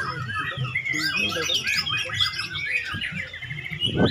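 White-rumped shama singing a fast, varied song of whistles and chattering phrases that change every fraction of a second.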